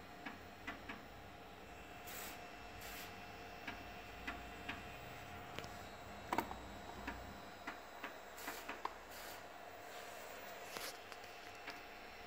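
3.5-inch floppy disk drive working through a ScanDisk surface scan: the read head steps across the tracks with irregular clicks and ticks, broken by a few short rasping bursts, over a faint steady hum.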